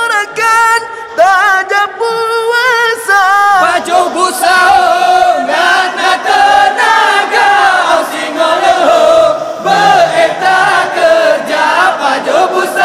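A single voice sings alone for the first few seconds, then a group of voices comes in chanting and singing together: a sahur wake-up call, sung to rouse people for the pre-dawn Ramadan meal.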